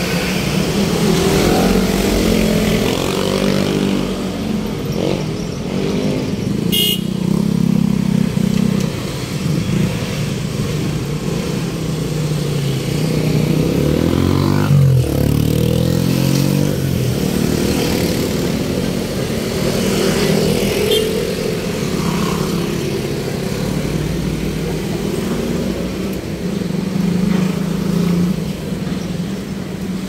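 Road traffic: vehicle engines running steadily, with one vehicle passing close about halfway through.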